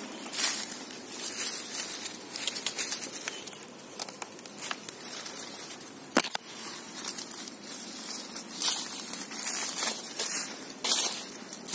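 Footsteps and brushing through dry bamboo leaf litter and undergrowth: irregular crunching and rustling, with one sharp crack about halfway through.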